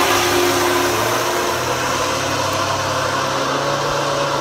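Remote-control fishing boat's 24-volt electric motor running steadily at cruise, a steady hum under a hiss. Its pitch steps up slightly about a second and a half in.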